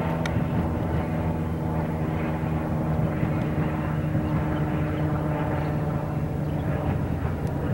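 Diesel locomotive engine of an approaching Amtrak train, not yet in sight, running with a steady, even drone that holds one pitch.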